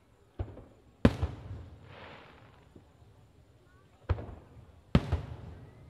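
Aerial firework shells bursting: four sharp bangs, the loudest about a second in and another near the end, each trailing off in a rumbling echo.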